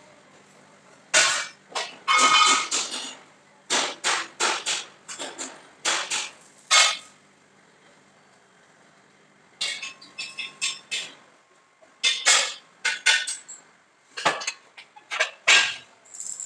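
Sharp metal-on-metal clanks in quick runs of several strikes a second, with short pauses between the runs and a ringing tone after some strikes. It is steel being struck and handled in a sheet-metal workshop.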